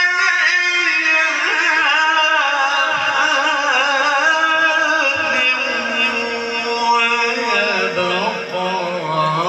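Male qari reciting the Quran in a long, drawn-out melodic phrase with wavering ornaments, his pitch sinking lower near the end.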